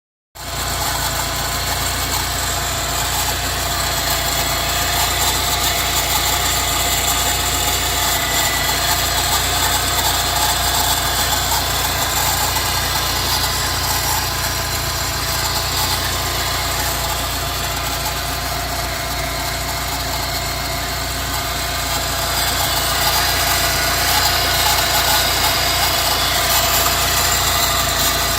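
Subaru Legacy BP5's flat-four engine idling steadily with a squeaky, swishing "sakyu-sakyu" belt noise from the engine bay. The noise comes from a worn tensioner pulley on the air-conditioning compressor belt.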